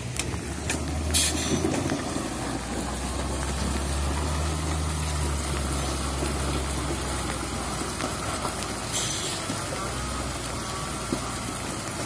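Diesel engine of a heavy tractor-trailer truck running steadily as it manoeuvres on mud, with two short hisses, about a second in and near the end.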